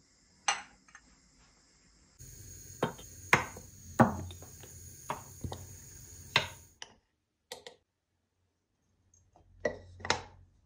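A glass jar and ceramic pieces set down and shifted on a granite countertop: a string of sharp clinks and knocks, some in quick pairs.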